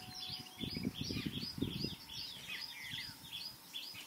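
Birds chirping outdoors in a steady repeated series of short calls, about three a second, with a few faint low sounds about a second in.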